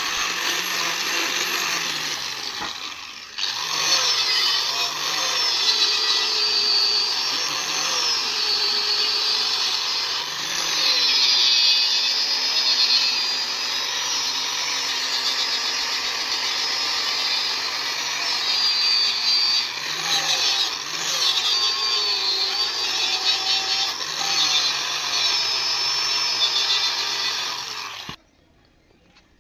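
Handheld power tool running on steel, its pitch rising and falling as the load changes. It dips briefly about three seconds in and cuts off suddenly shortly before the end.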